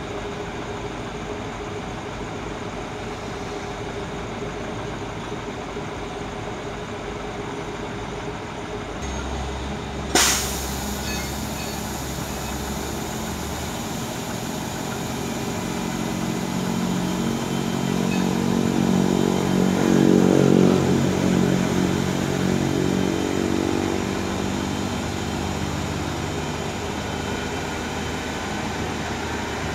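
Demag AC 615 all-terrain crane's diesel engine running steadily while the boom is lowered, with a single sharp knock about ten seconds in. From about fifteen seconds in the engine note swells, loudest around twenty seconds, then eases back.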